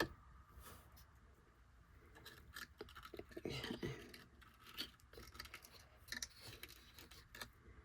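Faint, scattered small clicks and scrapes of craft materials being handled at a table, with a louder scraping stretch about halfway through.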